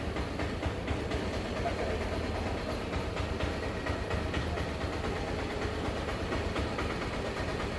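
Steady mechanical rumble with a fast, continuous rattle, from a running machine.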